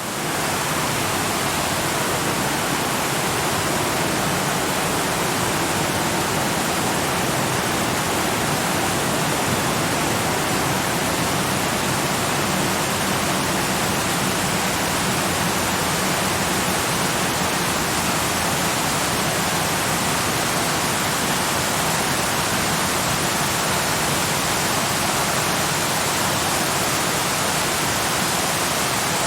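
Waterfall: water pouring off rocks into a lake, a steady, even rush of falling water.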